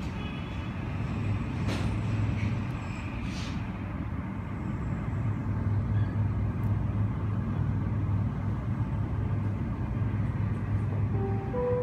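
Steady low drone of jet aircraft on the apron, heard through the terminal glass. Near the end an airport public-address chime of a few notes stepping upward begins.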